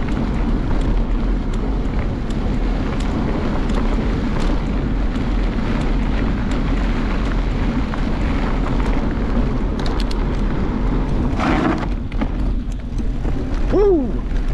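Wind buffeting the microphone and tyres rumbling over a dirt trail during a fast bicycle ride, a steady noisy rush. Near the end comes a short squeal that rises and falls in pitch.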